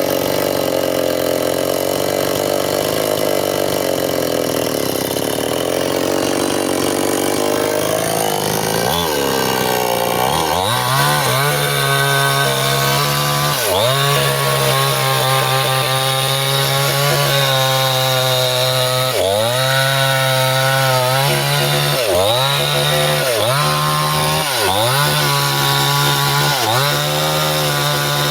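Stihl two-stroke chainsaw cutting bendo wood at high revs. For the first several seconds the sound is a rough, noisy rasp; then, about nine seconds in, the engine note turns clear and high, its pitch dipping sharply and recovering several times.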